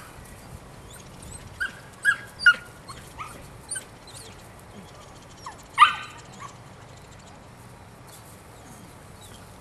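Nine-week-old Belgian Malinois puppy giving short high yips and barks while it grips and tugs a burlap tug toy. There are about half a dozen, spread over the first six seconds, and the loudest comes a little before six seconds in.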